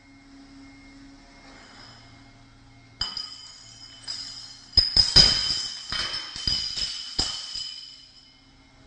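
Glass beer bottles clinking and breaking: clattering starts about three seconds in, then several sharp crashes come in quick succession past the middle, with glass ringing, before it dies away.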